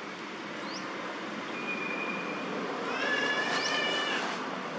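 Infant long-tailed macaque giving a high, drawn-out cry lasting a little over a second, about three seconds in, over a steady outdoor hiss. Short high chirps and a brief steady whistle come before it.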